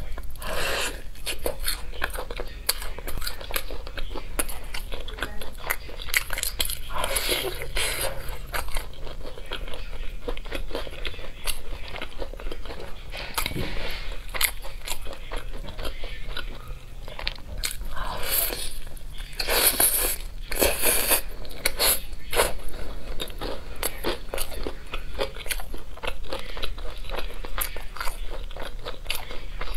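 Biting into and chewing sauce-glazed fried chicken, with repeated crunches of the fried coating between bouts of chewing. A run of louder crunches comes about two-thirds of the way through.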